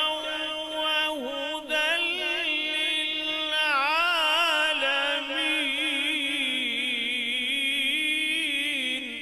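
A man reciting the Quran in the melodic, drawn-out style of tilawat through a microphone: long sustained notes with wavering ornaments. The voice falls away near the end.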